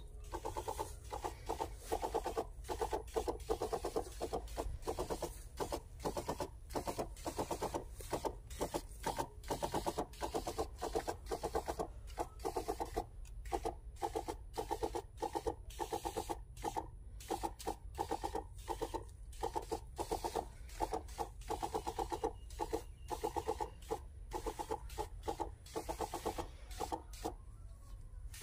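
Backpack crop sprayer's small pump running, a rapid steady pulsing buzz, while fungicide is sprayed onto plants.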